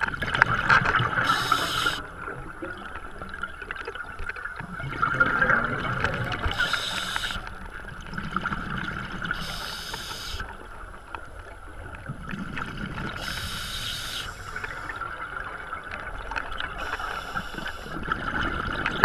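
Scuba regulator breathing heard underwater: five bursts of exhaled bubbles, each about a second long and about three to four seconds apart, over a steady underwater hiss.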